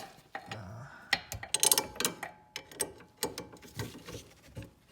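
Metal hand tools clicking and clinking as an extra-long ratcheting wrench is worked onto a car's lower sway bar end link nut: a string of irregular sharp metallic clicks, the busiest about one and a half to two seconds in.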